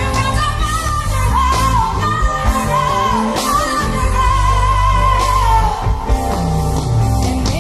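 A woman sings high, long-held notes that bend in pitch, live with a pop band: bass, drums and guitar.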